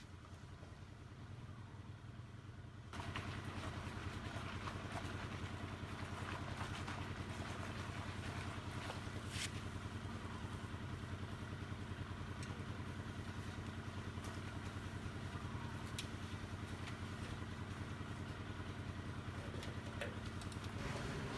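A small engine starts running steadily about three seconds in, with a fast, even pulse, and keeps going.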